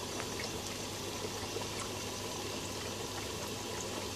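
Steady trickling and bubbling water from an air-driven airlift pond filter, with faint scattered ticks over a low steady hum.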